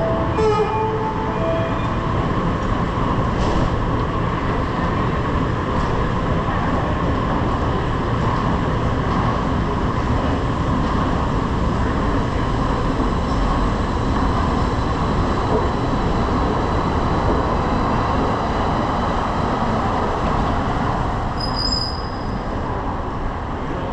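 Edmonton LRT train running along the track, a steady rumble of wheels and car. A brief high wheel squeal comes about 21 seconds in.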